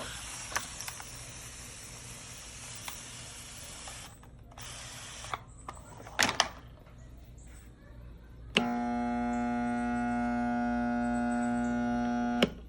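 Husky 1800 electric power washer's motor buzzing with a steady hum for about four seconds without starting, switched on and off with a click at each end: the motor is stalled and won't turn over. Before that, a hissing rush with a few clicks for about four seconds and again briefly.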